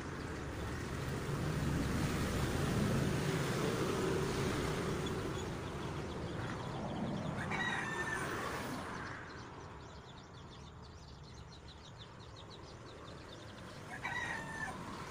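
A rooster crowing, once about halfway through and again near the end, over a low rumble that fades out about two-thirds of the way in.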